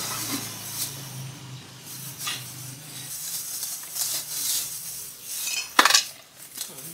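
Plastic bags crackling and rustling as snacks are packed by hand, with scattered light clinks and one sharp clatter about six seconds in.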